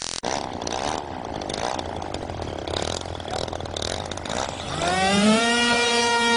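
Small model-aircraft engine driving a giant paper-airplane model. It runs with a rough rattle, then revs up about five seconds in to a steady high-pitched drone as the plane is launched.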